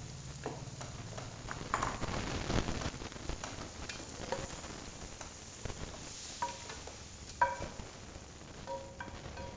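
A spatula stirs thick chili sambal paste frying in a stainless steel pot, scraping through it over a low sizzle. Now and then it knocks against the pot, and several knocks in the second half leave a brief metallic ring. The sharpest knock comes about seven and a half seconds in.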